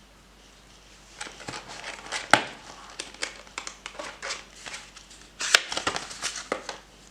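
Packaging being handled, crinkling and rustling in irregular crackles, with two sharper snaps about two and a half and five and a half seconds in.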